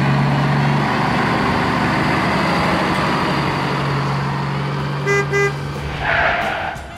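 Heavy truck engine running steadily, with two short horn toots about five seconds in and a brief hiss just after.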